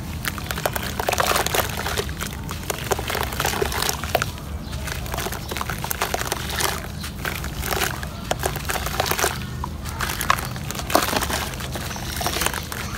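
Wet sand-cement mud lump being crushed and crumbled by hand in a basin of water: gritty crunching and crackling mixed with water splashing and sloshing.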